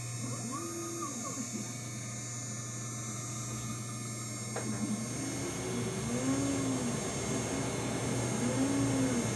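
2.2 kW Chinese CNC router spindle running steadily at about 7,500 rpm with a constant hum and high whine, while the stepper-driven axes move, adding a tone that rises and falls in pitch about once a second. About four and a half seconds in there is a click and the sound grows louder.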